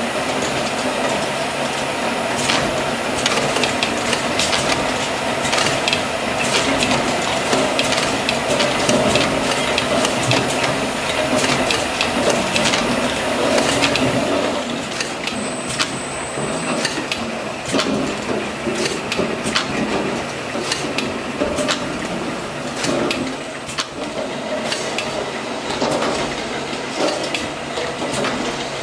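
LAB8501 deposit-label labelling machine running with cans on its conveyor and turntable: a steady mechanical clatter with many irregular sharp clicks and knocks.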